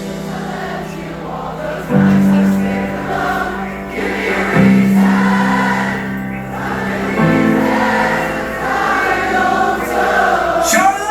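Rock band playing live through a venue's PA: long held chords over a sustained bass, changing about every two and a half seconds, with many voices singing over them.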